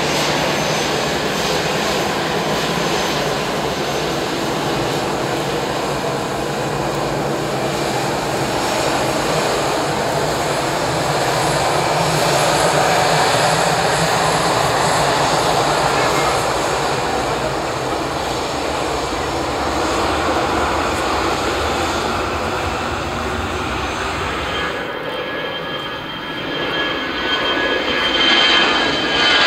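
Airbus A320 jet engines running as the airliner taxies: a loud, steady turbine rumble and hiss that swells a little midway. Near the end the sound changes and a thin high whine comes in, falling slightly in pitch.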